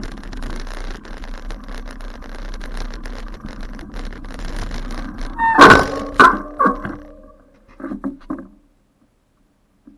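Steady rumble of a bicycle being ridden over a rough grassy path, then about halfway through a burst of loud, sharp, ringing sounds, a few fainter ones a couple of seconds later, and then the sound cuts off.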